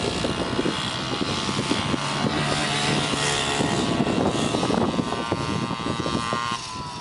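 Small engines of a Yamaha PW50 minibike and a Raptor 80 quad racing on a dirt track, a high-pitched engine note held at high revs. The note climbs a little early on and dips near the end as the riders ease off.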